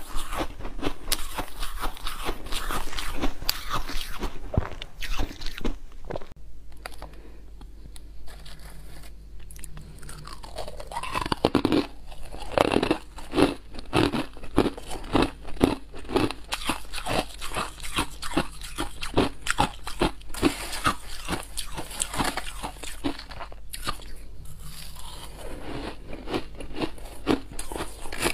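Close-miked crunching and chewing of mouthfuls of white freezer-frost ice, many sharp crunches in quick succession. It eases off for a few seconds near the middle, then the crunching comes thick again.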